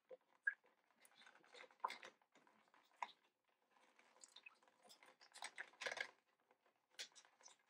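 Faint crinkling and crackling of a clear plastic bag being handled, in short irregular bursts with small clicks, the loudest rustle coming a little before the end.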